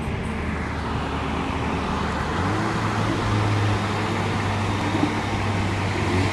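Engine and tyre noise heard from inside a moving car, with a low steady engine drone that gets stronger about two and a half seconds in.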